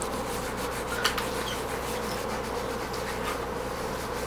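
Fingertip rubbing over drawing paper, smearing pencil graphite to blend the shading.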